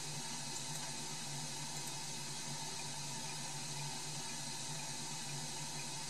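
Pink noise playing through a studio monitor speaker as a constant, even hiss. It is the reference track for balancing the levels of a virtual drum kit.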